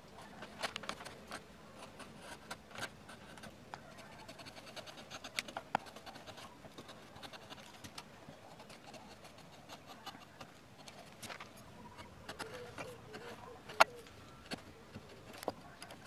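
Hand-pushed carving chisel and gouge paring wood on a relief panel: scattered scraping cuts and small clicks of the tool on the wood, with one sharp knock about two seconds before the end.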